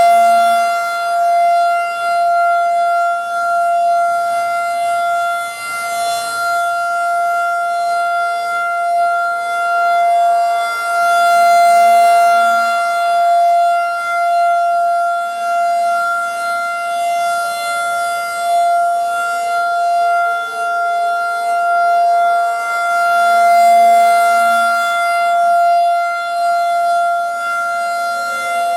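Federal Signal 2001-DC electronic outdoor warning siren sounding its steady alert tone, swelling and fading about every six seconds as it rotates. This is the 3-minute alert signal of a nuclear plant notification siren test. Another siren in the background glides down in pitch about two-thirds of the way through.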